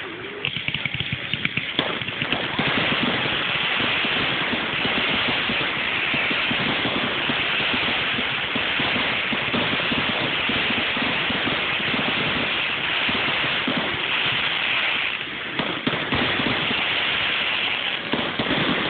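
A dense, continuous barrage of aerial fireworks: many rapid bursts and crackles merge into one unbroken crackling, with a short lull about fifteen seconds in.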